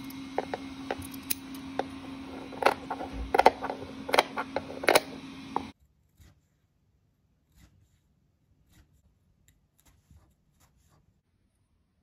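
Scissors snipping through coarse burlap (jute) fabric in a quick series of cuts over a steady low hum. The sound cuts off about six seconds in, leaving only faint scattered ticks.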